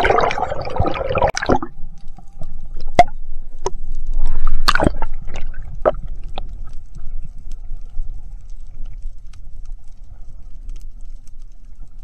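Underwater sound during a spearfishing dive. A dense bubbling rush fills the first second and a half, then a low steady rumble of water carries a handful of sharp clicks and knocks, the loudest about five seconds in.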